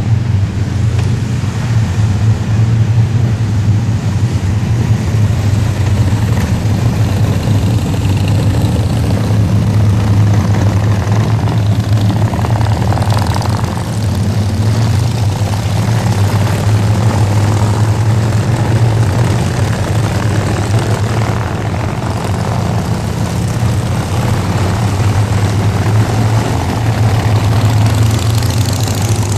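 Engines of many motorcycles, several of them large cruisers, rumbling past in a long column, blending into one continuous low drone that swells and eases slightly as bikes come and go.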